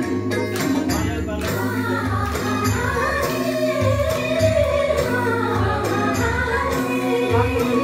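A woman singing a song into a microphone through a PA system, over amplified backing music with a pulsing bass beat.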